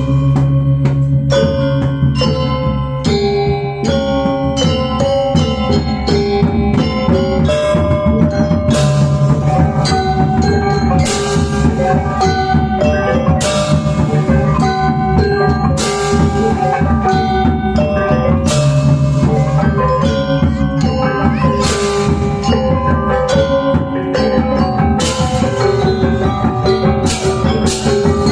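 Balinese gamelan gong ensemble playing a tabuh: bronze metallophones ring in dense, fast patterns over deep held gong tones, with bright crashes every two or three seconds.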